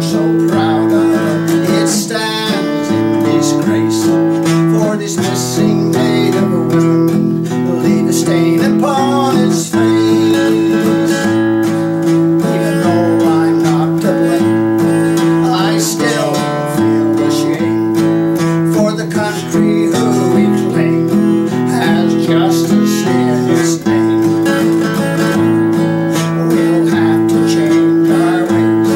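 Acoustic guitar strummed in a steady rhythm, ringing chords throughout.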